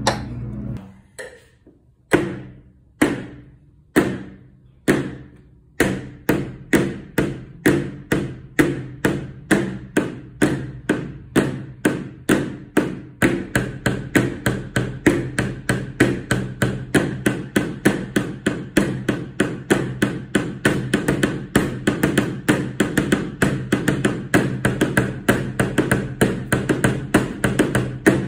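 Two marker pens tapping on paper on a tabletop, playing rhythmic figures. The strikes come about one a second at first, about two a second from about six seconds in, and in quicker groups from about halfway on, each tap with a short ringing knock.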